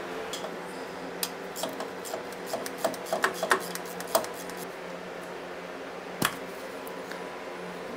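Allen wrench and small metal parts clicking and clinking as a small Allen bolt is worked out: a run of light ticks in the first half and one sharper click later on. A fan hums steadily underneath.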